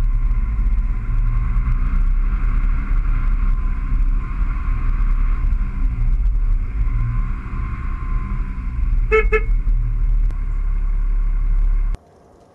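Motor vehicle running steadily with a strong low hum, with two quick horn toots about nine seconds in; the sound stops suddenly shortly before the end.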